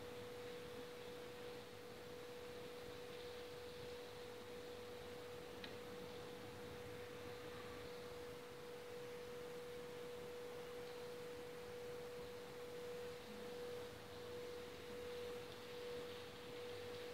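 A steady, unwavering pure tone in the mid range, with a faint hiss of noodles deep-frying in oil beneath it.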